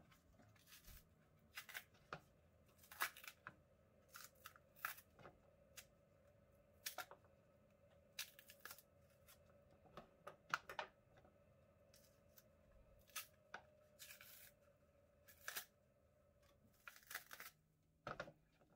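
Thick green skin being torn off unripe plantains by hand: faint, irregular ripping and peeling sounds, a short tear every second or so.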